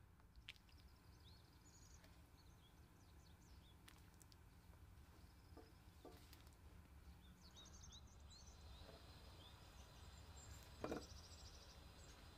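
Near silence: faint birds chirping in the background over a low steady hum, with a single soft knock near the end.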